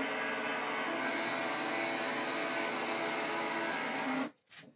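Mini lathe running while turning a bog oak handle blank: a steady motor whine with several held tones over a hiss of cutting. It cuts off suddenly about four seconds in.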